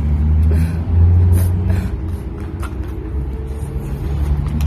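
Low, steady motor hum like a running engine, with a few faint clicks over it.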